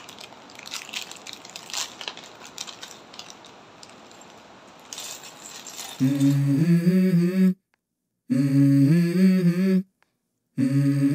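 Faint crinkling of a plastic parts bag and small plastic Lego bricks clicking and clattering as they are tipped out onto a wooden table. About six seconds in, a much louder song starts: a vocal melody in held notes that cuts out abruptly twice.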